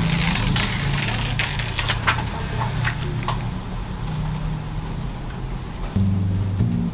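Fingertips rubbing and pressing across a freshly applied tempered-glass screen protector on an iPhone 14 Pro, pushing out the last air bubbles: a brushing hiss for the first two seconds, then several light taps on the glass. A low steady hum lies underneath.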